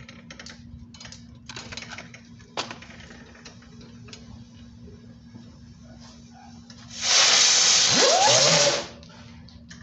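A small handheld-type firework burning with a loud, steady hiss for just under two seconds, starting about seven seconds in and cutting off sharply; faint crackles before it.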